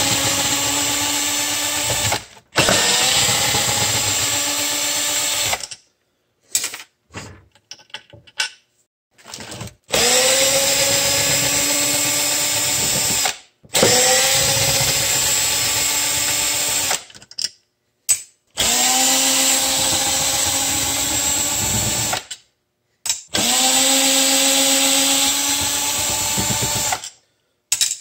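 Cordless drill-driver backing screws out of aluminium brackets, its motor whining in runs of a few seconds each with short pauses and a few brief blips between.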